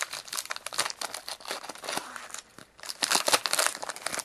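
A trading-card pack wrapper being torn and crinkled open by hand: a run of crackling rustles, loudest about three seconds in. These packs are hard to open.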